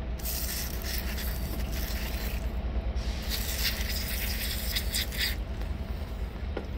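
Hand scraping and rubbing on the metal sealing face of a Volvo B5 engine's coolant pipe port, cleaning it flat and smooth of old gasket residue and dark spots. It comes in irregular strokes in two spells, with a short pause about two and a half seconds in, and dies away after about five seconds.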